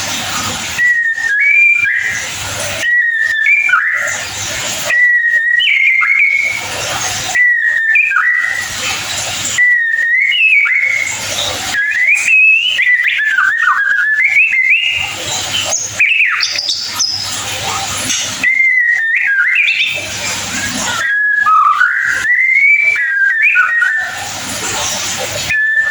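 White-rumped shama (murai batu) singing: a run of short, clear whistled phrases, each opening on a held note and breaking into quick twittering, repeated every second or two. A hiss fills the gaps between phrases.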